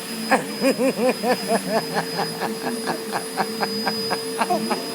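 Vacuum cleaner running with a steady high-pitched whine and a lower hum, with regular clicking about four or five times a second. A child's quick, rhythmic whimpering sounds come over it in the first couple of seconds.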